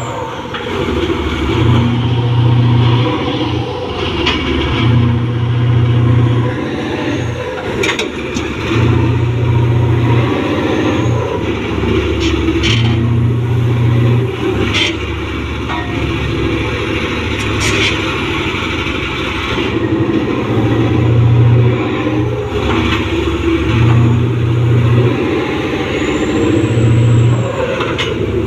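Diesel engine of a large mining haul truck labouring as it tows another haul truck. Its low note swells and drops every second or two, with scattered clanks and knocks.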